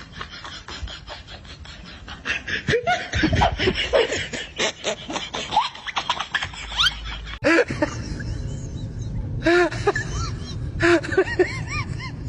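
A person laughing in runs of short, repeated ha-ha bursts, after a cut about seven seconds in. Before the cut, a jumble of clicks and short squeaky sounds.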